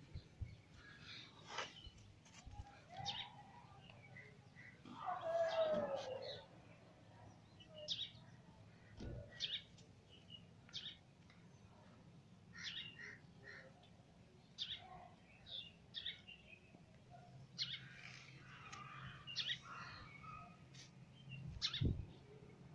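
House sparrow fledgling chirping: short, high chirps at irregular intervals. A louder, longer sound falls in pitch about five seconds in.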